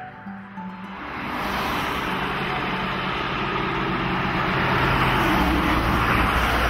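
Road traffic passing close by: a lorry and a white van drive past, their tyre and engine noise building from about a second in and loudest as the van goes by near the end.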